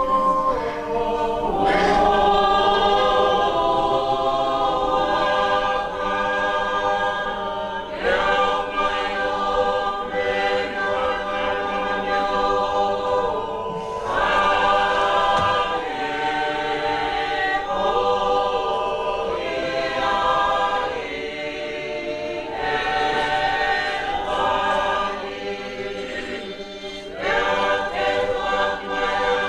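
A congregational choir singing a hymn in Tongan, unaccompanied. The voices hold long chords in several parts, with a new phrase starting every few seconds.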